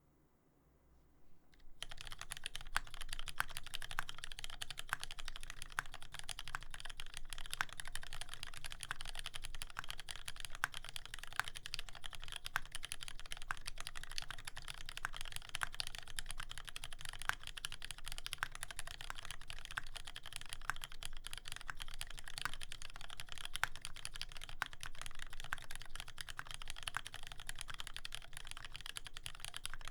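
Steady fast typing on a TX84v2 custom mechanical keyboard with lubed retooled Cherry MX Black 70g linear switches, a brass plate and GMK doubleshot keycaps: a dense run of keystroke clacks that starts about two seconds in.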